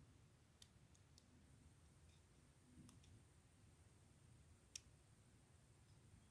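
Faint, scattered metallic clicks of lock picks working a pin tumbler lock, about five small ticks and one sharper click nearly five seconds in, over near silence.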